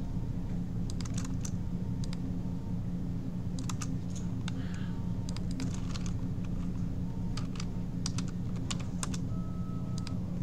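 Computer keyboard being typed on in short scattered runs of key clicks, over a steady low hum.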